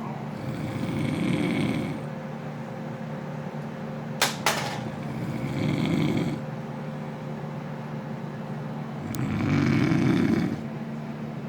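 A man snoring loudly: three long snores, each just over a second, about four seconds apart. Two sharp clicks come between the first and second snores, over a steady low hum.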